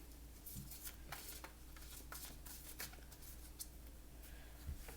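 Faint scattered clicks and light rustling of tarot cards being handled, over a steady low hum.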